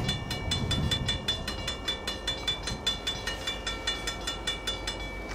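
Railroad grade-crossing warning bell ringing at about four strikes a second, each strike ringing with a few clear high tones, as a freight train approaches the crossing.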